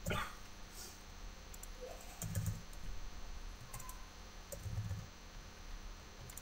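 Computer keyboard being typed in short runs of faint key clicks, with a few dull low thumps between them.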